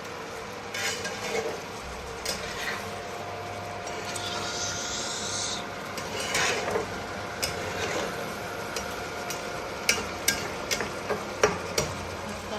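A spoon or spatula stirring and scraping mutton curry in a frying pan as the liquid is cooked down, with a quick run of sharp taps against the pan near the end.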